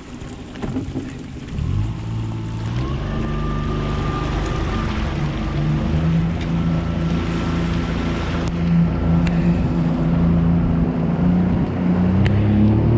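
Boat motor picking up about a second and a half in and running steadily as the boat moves off, its pitch rising a little near the end.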